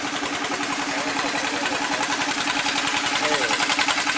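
An engine running steadily, with a constant hum over a fast, even pulsing.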